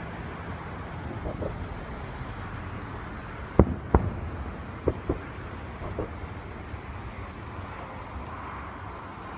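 Distant fireworks bursting: two sharp bangs about three and a half seconds in, another pair about a second later, and a fainter one near six seconds. They sit over a steady hiss of road traffic and wind.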